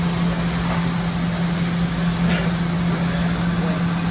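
Hydraulic power unit of a 110-ton Ermaksan CNC press brake running with a steady hum, with a faint short hiss a little past two seconds in during a bend cycle.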